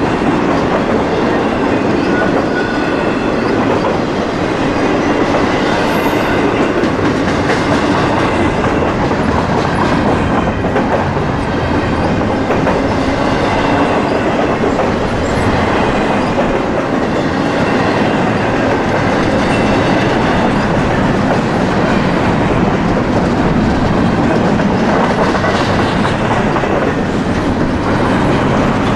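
A train rolling past, its cars giving a steady, loud noise of wheels on rail.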